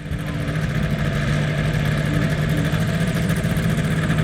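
Powered parachute's engine running at a steady speed, its pitch holding constant, with a hiss of wind over the microphone.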